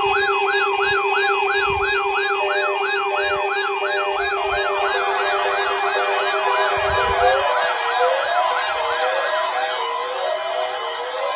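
Stacked electronic siren wails, each rising and falling about two and a half times a second, over several steady alarm tones. From about five seconds in, more offset copies of the wail pile on, making a dense clashing din.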